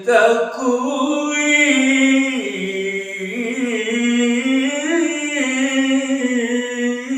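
A man's voice in melodic Quran recitation, drawing out one long, unbroken, ornamented phrase whose pitch steps up and down.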